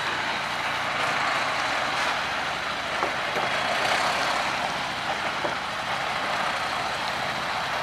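Heavy truck running close by: a steady engine and mechanical noise, with a few light knocks.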